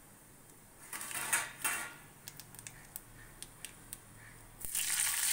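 Small seeds ticking and popping in hot oil in a wok, after a brief clatter about a second in. Near the end there is a sudden, loud sizzle as green chillies drop into the oil.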